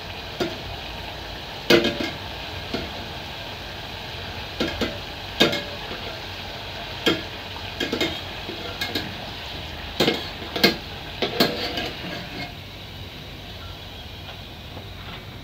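Mandazi dough deep-frying in hot oil, a steady sizzle, with a wire-mesh skimmer clinking against the metal pot over and over as they are turned. The clinks stop about twelve seconds in, leaving only the sizzle.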